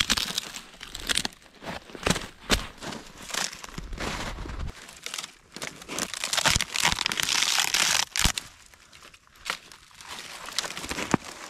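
Dry, brittle tumbleweed being grabbed and pulled apart by hand: an irregular crackling and crunching of thin dead twigs, with sharp snaps now and then. It is densest in the middle and thins out about three-quarters of the way through.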